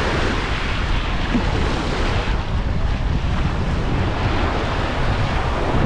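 Wind buffeting the microphone with a low rumble, over the steady wash of surf on a sandy beach.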